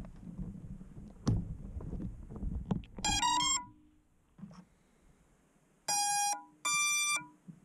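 Electronic startup beeps from FPV drone gear being powered up: a short stepped rising tone about three seconds in, then two beeps near the end, the second a little higher than the first. A few light handling knocks come before.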